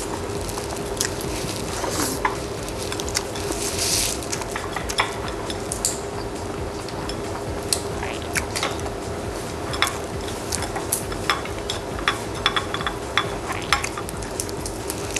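Close-miked eating of shell-on halabos shrimp: scattered wet clicks and crackles of chewing and shell, irregular throughout, over a steady hum.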